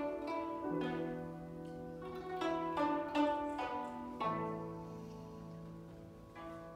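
Guzheng played with grand piano accompaniment: a run of plucked, ringing guzheng notes over held low notes. The music grows gradually softer through the second half.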